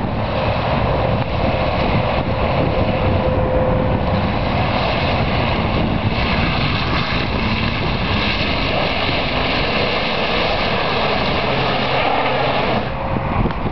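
Ford Ranger's 4.0-litre V6 engine running steadily as the truck drives off-road, with a brief dip in level near the end.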